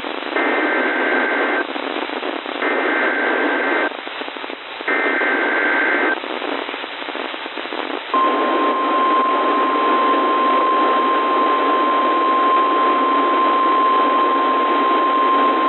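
Weather-radio alert over a hissy radio channel: three digital SAME header bursts, each a shrill two-pitch data warble about a second long. About eight seconds in, the steady 1050 Hz NOAA Weather Radio warning alarm tone starts and holds, announcing a new warning.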